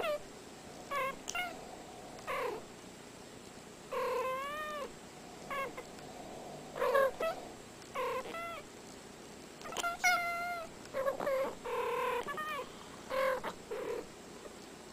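Two domestic cats making a string of short chirping meows and trills, a dozen or more brief calls, some with a wavering rise and fall in pitch.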